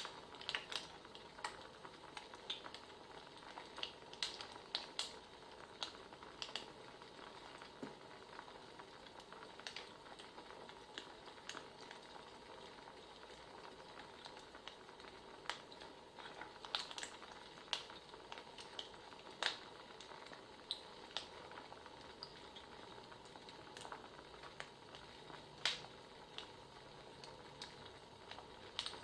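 Wood fire crackling: irregular sharp pops and snaps over a faint steady hiss.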